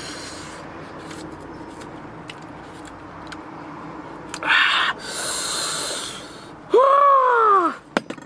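A man's breathy reaction to the sourness of green mango with chili salt: a short puff of breath, a long hissing draw of air through pursed lips, then a loud pitched "ooh" that rises and falls, about seven seconds in.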